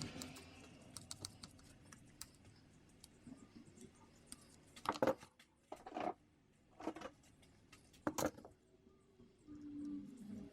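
Rusty hand pruners being worked open and shut by hand: light metallic clicks with four louder short snaps about a second apart near the middle, as the corroded pivot joint, freshly soaked in penetrating oil and WD-40, is loosened.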